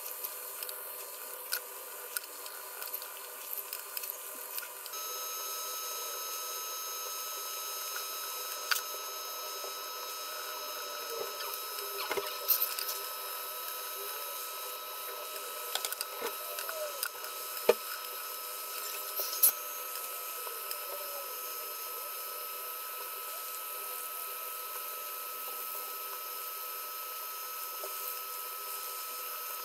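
Coloured pencil working on drawing paper: scattered small clicks and scratches over a steady hiss, with a faint high electronic whine coming in about five seconds in.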